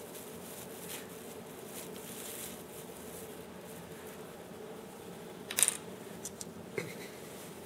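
Quiet room tone with a faint steady hum, and the soft handling noise of fingers rolling a small ball of plastic balloon compound. A short sharp rustle about five and a half seconds in, then a couple of lighter clicks, as hands and sleeve move close to the microphone.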